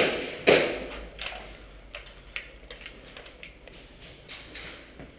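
Sharp clicks and knocks in a concrete stairwell: two loud ones about half a second apart at the start, each trailing off in an echo, then scattered lighter clicks.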